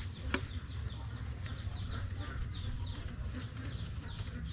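Birds chirping over and over in short, falling calls over a steady low rumble of wind on the microphone, with a couple of sharp taps, the loudest one just after the start.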